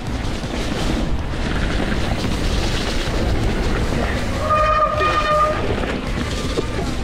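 Mountain bike descending a wet dirt trail: a steady rumble of wind on the microphone and tyres rolling over dirt, with the bike rattling. About four and a half seconds in, a steady whining tone from the bike sounds for about a second.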